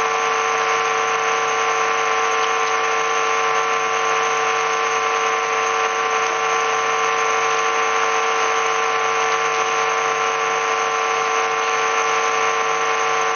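Temple bells rung rapidly and without a break during an aarti: a steady metallic clangour with ringing bell tones held over it.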